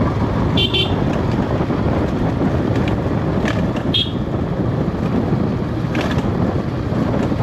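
Motorcycle engine rumble under heavy wind noise on an action camera's microphone while riding a dirt track, with two brief high chirps about a second in and about four seconds in.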